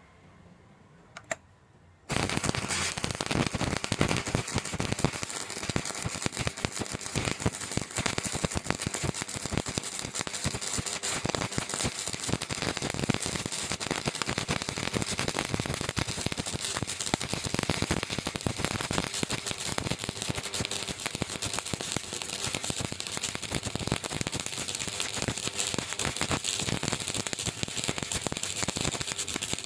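Stick-welding arc on a 6013 rod at about 100 amps. After a single click, the arc strikes suddenly about two seconds in and then crackles steadily and densely.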